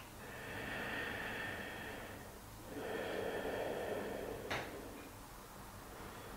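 A woman breathing slowly in and out through her nose: two long, soft breaths of about two seconds each, then a faint click about four and a half seconds in.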